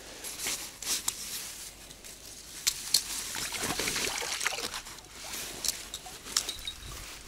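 Fishing keepnet being lifted out of the water by its hoops: water trickling and pouring off the mesh, loudest a few seconds in, with scattered sharp clicks and rustling of the net.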